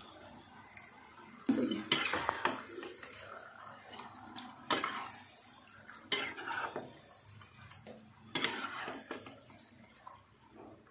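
Metal spatula scraping and knocking against a nonstick wok as it turns raw chicken pieces in spice paste, in irregular bursts of clatter a second or two apart.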